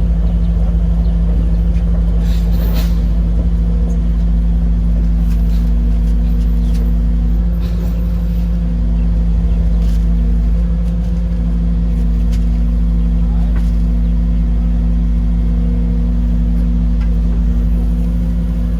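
An engine running steadily at a constant speed, a loud low drone with a steady hum, with a few light knocks over it.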